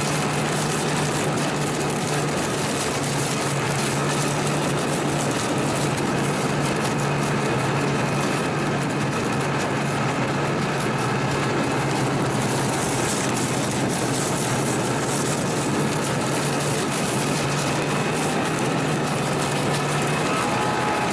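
Two-stroke snowmobile engine running at a steady cruising speed, heard from on board the moving sled, with a constant low drone over the rush of track and wind noise.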